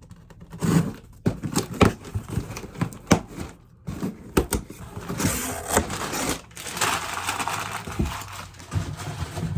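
A delivery package being handled and opened: a string of knocks and clicks, then two longer spells of rustling and tearing packaging.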